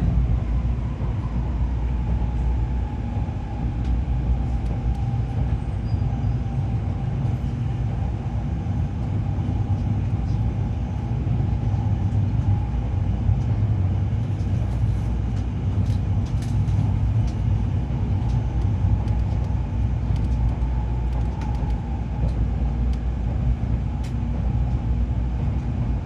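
Cabin running noise of a Tokaido Shinkansen 700 series train: a steady low rumble with a single held tone that slips slightly lower in pitch about a second in, and a few faint light clicks now and then.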